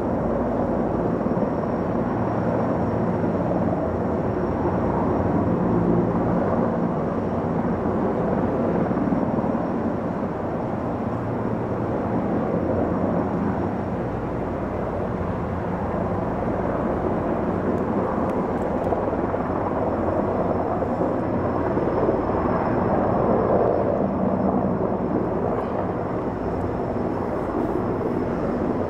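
Sikorsky S-64 Skycrane heavy-lift helicopter flying with a slung load: a steady, continuous rotor and twin-turbine drone, with a faint high whine above it.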